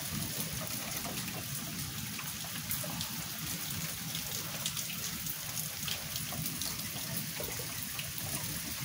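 Steady rain falling and dripping during a thunderstorm, with many small drop ticks.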